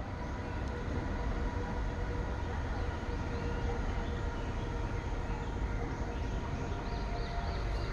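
Steady low rumble and hum with a few faint steady tones, like a running vehicle or machinery, with faint short chirps near the end.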